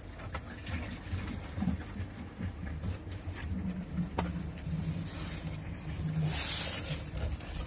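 Cardboard box flaps being opened and a styrofoam packing insert handled, giving scattered taps and clicks and a couple of brief scraping rustles, over a low steady rumble.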